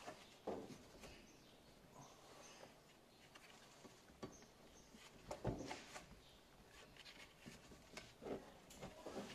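Faint handling sounds of a rubber exhaust hanger being worked onto the exhaust rod: light rubbing and a few soft knocks, the loudest about five and a half seconds in.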